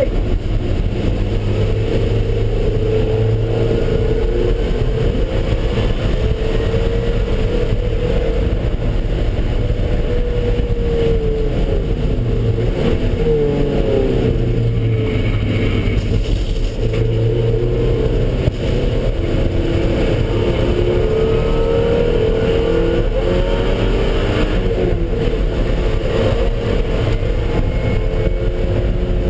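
Car engine being driven hard around a race track, its pitch rising under acceleration and falling off again several times, over a steady low rumble.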